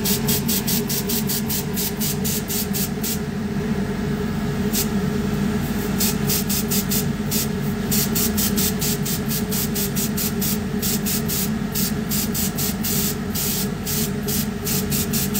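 Airbrush spraying cocoa butter in rapid short hissing bursts, about four or five a second, with a pause of a second or two a few seconds in.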